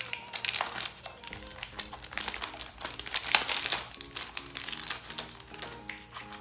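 Plastic crinkling and rustling in a string of irregular crackles, as press-on nail packaging is handled, over background music.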